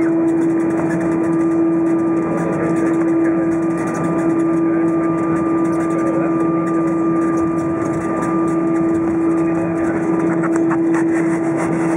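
Cabin noise of an Airbus A320 taxiing with its engines at idle, heard from a seat over the wing. It is a steady drone with a strong, constant humming tone.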